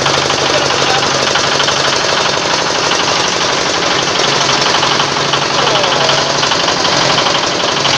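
Organic compost grinder machine running, a steady loud mechanical racket with rapid fine knocking over a low, even hum.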